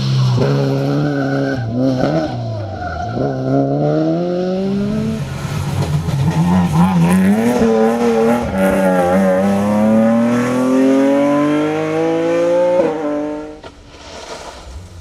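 Rally car engine accelerating hard through the gears, its pitch climbing and dropping back at each upshift, then pulling one long rising note before it lets off and fades about thirteen seconds in.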